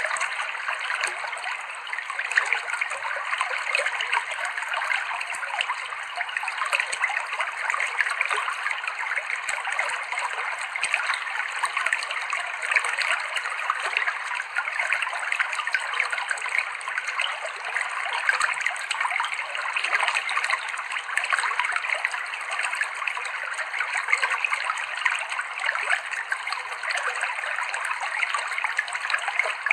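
Clear river water flowing over rocks, a steady, unbroken trickling rush.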